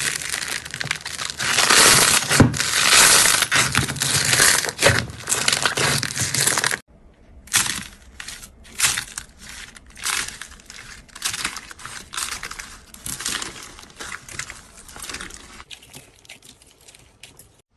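Slime being squeezed and pressed by hand, giving dense crackling and crunching. About seven seconds in it cuts off abruptly, then comes back as sparser, separate bursts of crackling that grow quieter toward the end.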